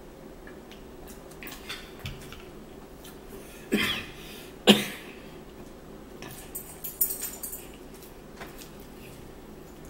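A woman coughs twice, about a second apart, with her fist at her mouth after drinking. A couple of seconds later come light clinks of cutlery and plates as food is handled at the table.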